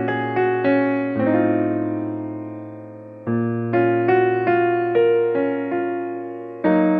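Background music: a gentle electric piano melody over a held bass note, with a long sustained chord that fades in the middle before the melody resumes about three seconds in.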